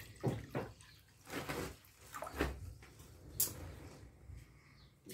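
A few faint, separate clicks and taps of a steel spoon and utensils against a metal pressure cooker, with short quiet gaps between them; the sharpest click comes about three and a half seconds in.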